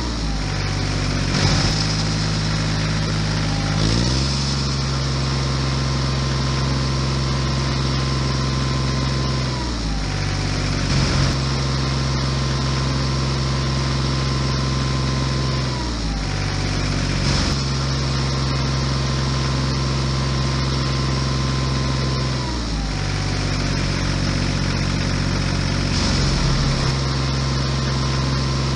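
Tractor-style engine drone, running steadily, with its pitch dipping and recovering every six seconds or so in a regular, loop-like cycle.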